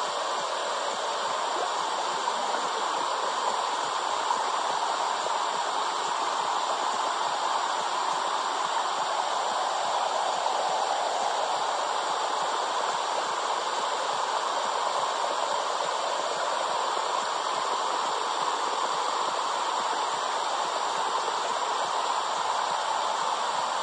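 Steady, even whooshing noise of a womb-sound track for settling babies, with no heartbeat or other rhythm in it.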